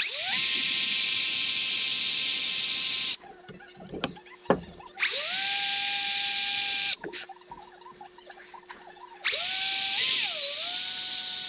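Small power drill boring weight holes into a poplar wood lure body, run in three bursts with a high whine. Each burst spins up with a rising pitch, and about ten seconds in the pitch sags briefly as the bit bites into the wood.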